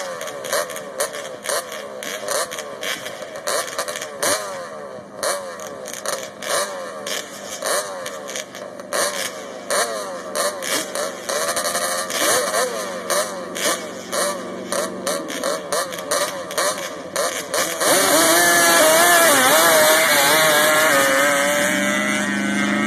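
ATV engines revving over and over, their pitch rising and falling, with many sharp crackles. About eighteen seconds in it turns louder, to a nearby ATV engine running with a wavering pitch.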